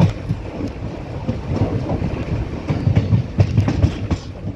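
Passenger train coaches running along the track, heard from the open doorway: a steady low rumble with sharp wheel clacks over rail joints, several in quick succession about three to four seconds in.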